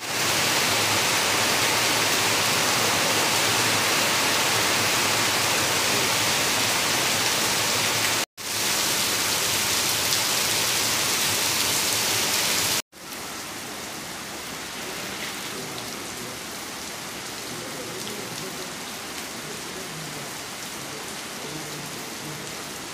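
Heavy rain falling, a steady loud hiss. It is broken by two brief dropouts, and after the second one, about thirteen seconds in, the rain goes on more quietly.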